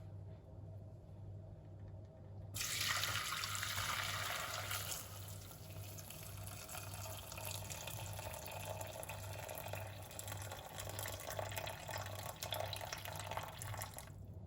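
Kitchen tap turned on a couple of seconds in, water running into the sink, strongest at first and then a little quieter, and shut off suddenly just before the end.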